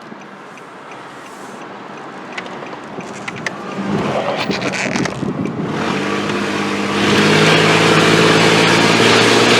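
Pickup truck's engine and road noise building as it accelerates onto a highway: the engine note comes up about halfway through, and rushing wind and road noise jump sharply louder about seven seconds in.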